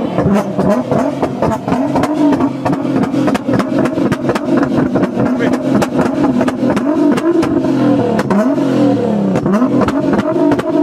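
Nissan GT-R's twin-turbo V6 revving while parked: it is held at a steady pitch at first, then blipped up and down several times near the end. A rapid crackle from the exhaust runs through it.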